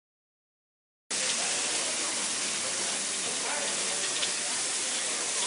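Food sizzling on a hot street-food grill, a steady hiss that starts abruptly about a second in, with faint voices behind it.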